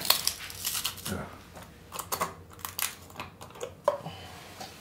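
Irregular plastic clicks and rattles of a SaferLock combination-lock pill bottle cap as it is pressed down and twisted, with sugar worked into its mechanism to defeat the lock.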